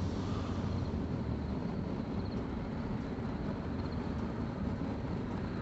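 Propane burner of a single-burner Mr. Volcano forge running with a steady hiss while firing the freshly rigidized wool lining to cure it.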